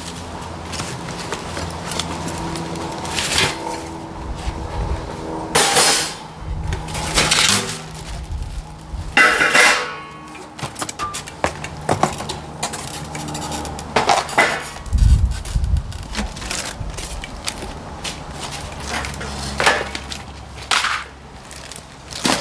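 Pit Barrel Cooker parts being unpacked by hand: cardboard box flaps and plastic wrap rustling, with irregular knocks and clatters as metal parts (the barrel, grate and boxed hooks) are lifted out and set down.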